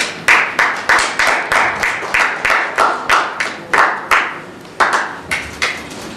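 Applause: distinct hand claps, about three a second, slowing and stopping near the end.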